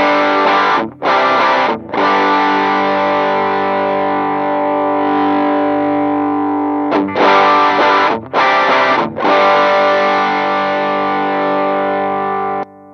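Electric guitar playing overdriven chords through a Demonfx DualGun pedal, a clone of the King Tone Duellist, with its Drive-B side switched on. Several quick strums twice, each followed by a chord left ringing for several seconds; the last one is cut off shortly before the end.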